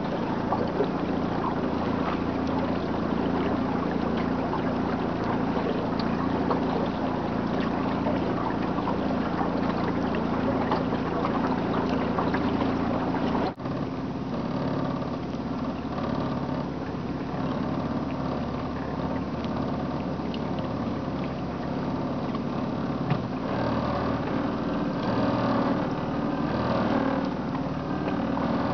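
Outboard motor of a small aluminium boat running steadily under way. About halfway through the sound drops out for an instant and picks up again slightly changed.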